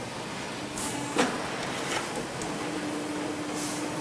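Machinery running steadily while a shovel scoops and scrapes dry, brittle lemon balm onto an elevator conveyor, with a few short swishes of the dry leaves. A steady low hum comes in about halfway through.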